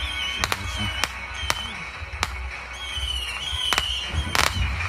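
Consumer fireworks going off: sharp bangs at irregular intervals with a wavering high whistle between them, and a longer crackling burst about four seconds in.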